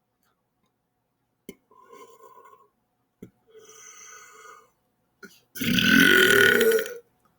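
A man's loud belch lasting over a second, starting about five and a half seconds in, its pitch sliding down. Before it come a few faint clicks and quiet sounds.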